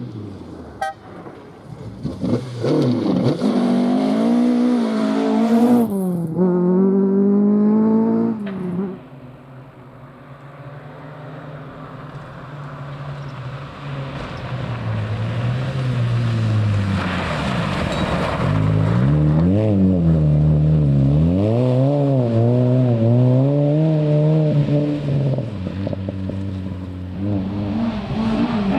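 Rally car engines at full throttle on a stage. The first car revs hard through several quick gear changes and falls away about eight seconds in. A second car then builds up, its engine climbing and dropping with each gear change as it comes past.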